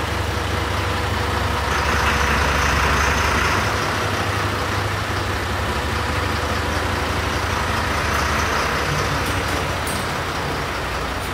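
Fire engine's diesel engine idling steadily just after being started, with a hiss over it that swells about two seconds in and fades again.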